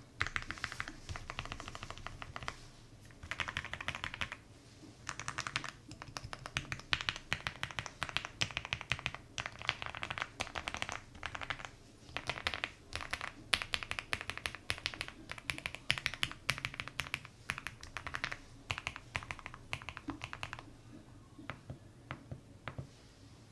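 Typing on a Wuque Studio Mammoth 75 mechanical keyboard fitted with lubed Aqua King linear switches and GMK keycaps: fast runs of keystrokes broken by short pauses, slowing to a few scattered taps near the end.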